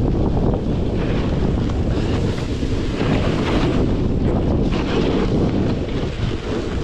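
Wind rushing over an action camera's microphone as a snowboarder rides downhill, mixed with the hiss of the snowboard sliding and scraping over the snow, which swells and eases every second or two with the turns.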